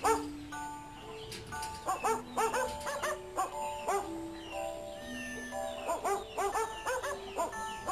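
Newborn Thai Ridgeback puppies squeaking in quick runs of short high squeals, about two seconds in and again around six seconds, over background music with held notes.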